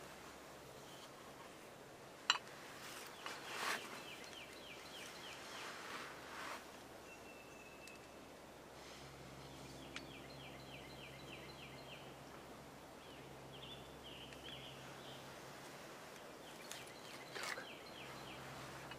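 Wild turkey gobbling in the distance a few times, about three and a half seconds in, around six seconds and again near the end, among repeated rapid songbird trills. A single sharp click sounds about two seconds in.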